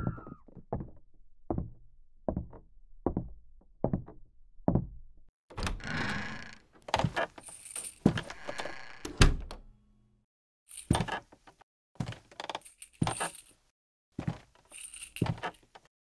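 Footsteps approaching at an even pace, then a bedroom door being opened, then steps across the room with a metallic jingling at each step.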